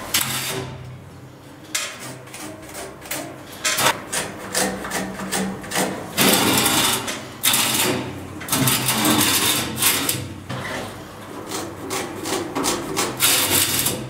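Irregular scraping and rattling of a galvanized steel drywall profile being handled and pressed against a concrete wall, with louder scrapes around the middle and near the end.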